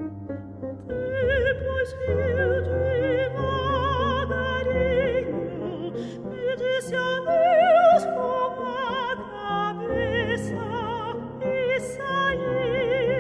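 A classical soprano sings with wide vibrato over piano accompaniment in a Portuguese-language art song. Piano chords lead in, and the voice enters about a second in. Her loudest note is a high held note near the middle.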